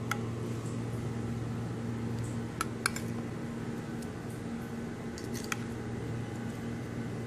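A steel spoon clinking against a ceramic bowl and plate while thick chilli masala paste is scooped and spread onto fish. There are a few light clinks, a quick cluster about three seconds in and another around five seconds, over a steady low hum.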